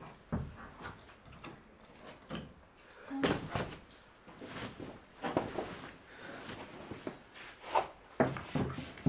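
Irregular knocks and thumps of a climber's hands and climbing shoes on the holds of a plywood home climbing board, with scuffs and steps on the crash mat, and a louder cluster about three seconds in.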